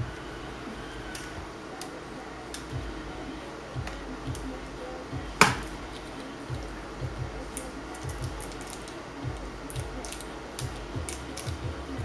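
Light plastic clicks and taps as a laptop motherboard is wiggled and pressed down into its plastic bottom case, with one sharp click about five and a half seconds in and a quicker run of small clicks near the end.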